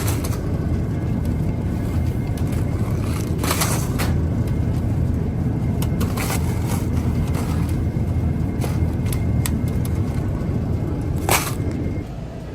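Shopping cart rolling across a store floor: a steady low rumble with a few sharp clicks and rattles, quieting near the end as it slows.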